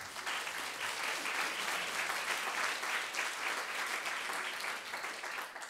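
Audience applauding: many hands clapping densely and steadily, tailing off near the end.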